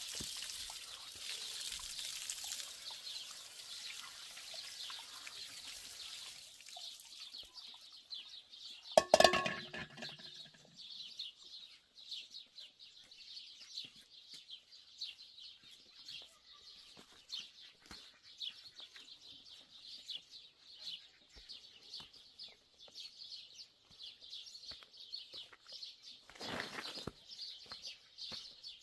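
Tap water splashing into a stone trough for the first six seconds or so, then steady chirping of small birds. About nine seconds in, a loud pitched call lasts about a second.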